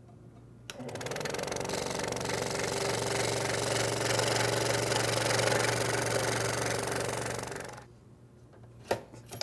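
Scroll saw switched on about a second in, its reciprocating blade cutting an inside cutout in a wooden board with a steady hum, then switched off about eight seconds in. A few light knocks follow near the end.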